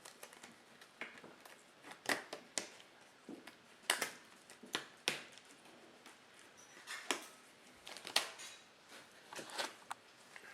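Clicks, taps and light rustling of small objects being handled on a tabletop: a dozen or so sharp knocks at uneven intervals.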